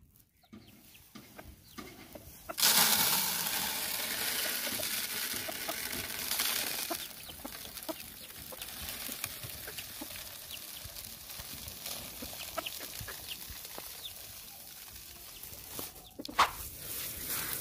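Domestic chickens, hens and a rooster, clucking around feed, over the rustle of a plastic bag of mixed grain. The rustling starts suddenly about two and a half seconds in and is loudest for the next few seconds, and there is a sharp tap near the end.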